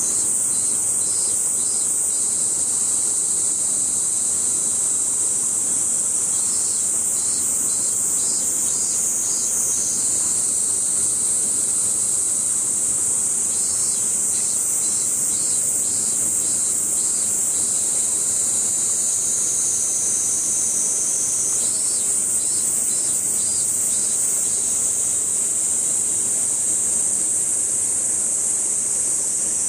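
Steady, loud, high-pitched drone of a summer cicada chorus. Over it, a pulsing insect call comes in bursts of two to three seconds, about every seven to eight seconds.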